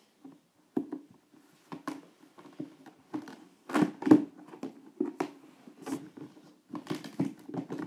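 Handling noise close to the microphone: irregular rustling, scraping and light knocks as plastic toys are moved and a fuzzy sleeve brushes past, with a cluster of louder knocks about four seconds in.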